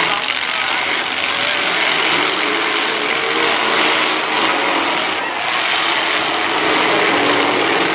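Engines of several demolition derby cars running and revving together, a loud steady mechanical noise with a brief dip about five seconds in.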